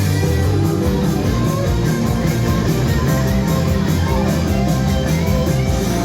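Loud rock music with guitar, dense and continuous.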